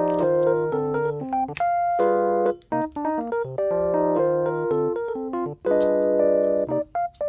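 Background music played on a piano-like keyboard, with chords and a simple melody, broken by brief pauses a little under three seconds in and again near the end.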